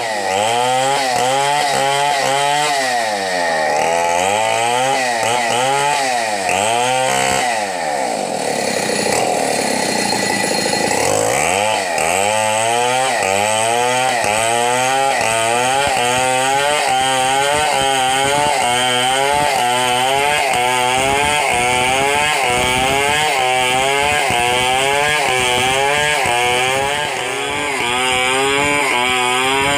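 Stihl 070 chainsaw's large two-stroke engine running under load as it rips lengthwise through a log, its pitch rising and falling about once a second, with a few seconds of higher, steadier running a third of the way in.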